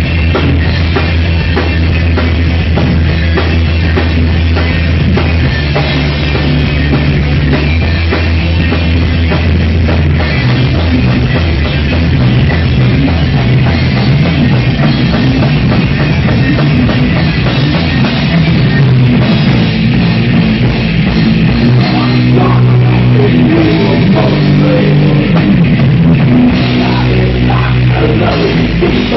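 Live heavy rock band of electric guitar, bass guitar and drum kit playing an instrumental passage loudly. The bass holds long low notes for about the first ten seconds, then moves to shorter, changing notes under the drums.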